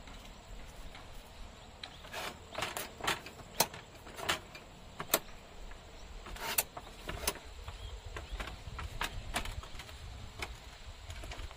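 Folding aluminium camp table being assembled: an irregular series of light metal clicks and clacks as its frame and legs are handled and snapped into place, a few sharper ones in the middle.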